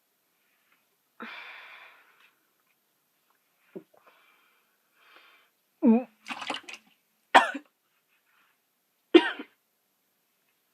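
A young woman coughing and gagging after downing water mixed with ketchup and mustard: a breathy exhale, then a few short, loud, throaty retching coughs in the second half, the last two the loudest.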